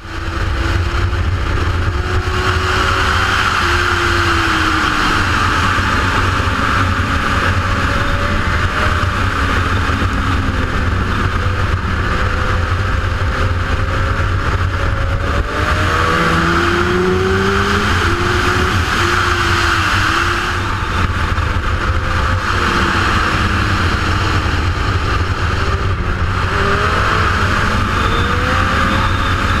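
Wind rushing over a GoPro on a sportbike at track speed, a heavy steady rush with a deep rumble. Underneath, the motorcycle engine's note rises and falls every few seconds as the rider accelerates, shifts and rolls off for corners.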